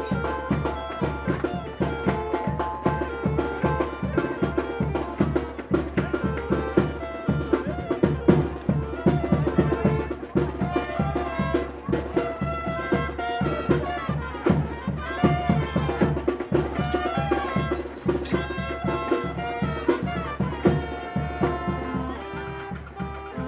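Tamborazo band music: brass melody over a steady bass drum and snare beat.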